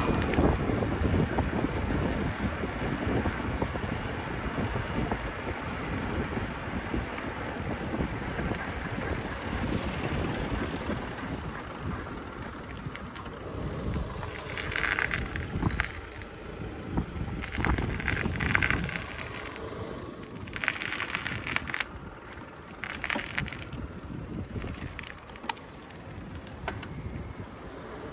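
Bicycle ride with wind rushing over the microphone and rolling road noise, easing off about halfway through. A few short, higher-pitched sounds come and go in the second half.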